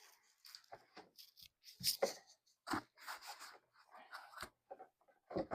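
Scattered rubbing, scraping and light knocks of the foam-covered leg poles of an animatronic prop being handled and fitted into place.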